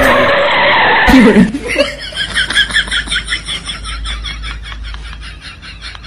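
A comedy sound effect: a short rushing noise, then a rapid, pulsing cackle that fades away over a few seconds.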